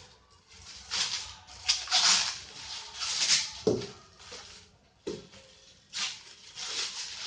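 Packaging rustling and scraping in several irregular bursts as the soundbar's subwoofer is unpacked from its box, with two sharp knocks in the middle.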